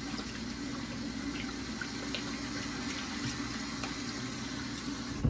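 Kitchen sink tap running steadily while hands are washed under it; the water cuts off abruptly with a short knock at the very end.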